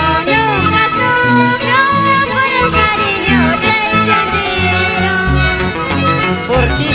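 Andean folk band music: a violin melody over plucked strings and a steady bass line.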